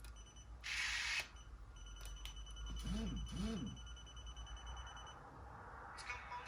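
Aiwa HS-JX505 walkman's FM radio tuner searching for stations: two short bursts of hiss between stations, then a fast, high beeping for about three seconds, with two brief rising-and-falling tones about halfway through.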